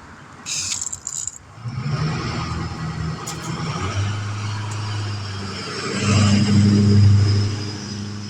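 A motor vehicle's engine running, getting louder about six seconds in and easing off near the end, with a brief rattle in the first second.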